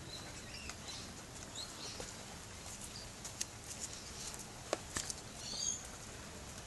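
Small birds chirping, with short high calls scattered through and a quick cluster about five and a half seconds in, over a faint even background. A few sharp clicks or taps sound near the middle.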